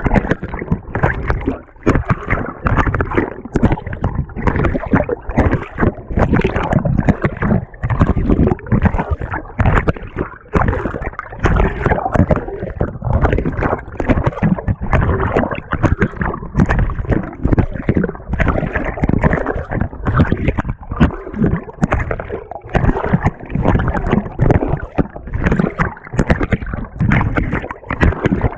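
Water sloshing and churning inside a GE top-loading washer's tub, heard close up from a camera mounted on the agitator, in choppy irregular surges as the agitator works the load.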